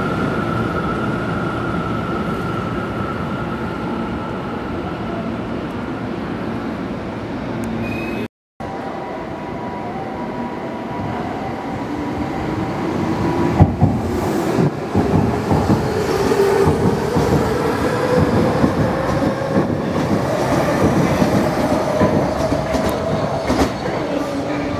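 Electric trains on a four-track line. First a Tokyo Metro 10000 series runs with a steady motor whine. After a brief cut, a Toei 6300 series approaches with a whine rising in pitch and a few sharp clacks over the rail joints.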